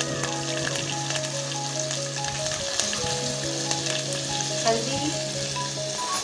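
Curry leaves, green chillies and whole spices sizzling and spitting in hot oil and ghee in a steel pot: the tempering (tadka) for a dal. Background music with a simple stepping melody plays over it.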